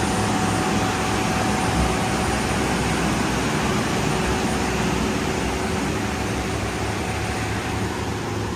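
Steady industrial machinery noise: a dense hiss and rumble with a few constant hum tones running through it, easing off slightly near the end.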